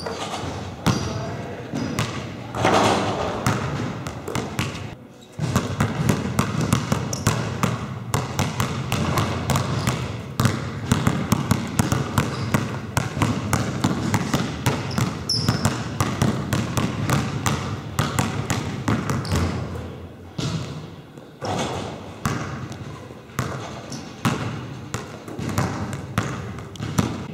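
A basketball dribbled hard and fast on a wooden sports-hall floor, a dense run of sharp bounces that echo around the hall, with a short break about five seconds in and sparser bounces near the end.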